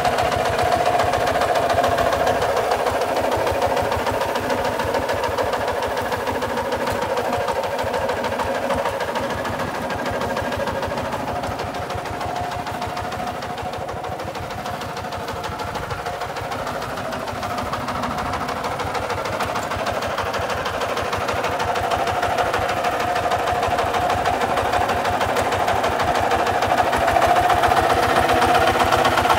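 Kubota RT140 DI walking tractor's single-cylinder diesel engine running steadily with a rapid knocking beat as the tractor is driven across a field. It fades a little in the middle as the tractor moves away and gets louder again near the end as it comes back close.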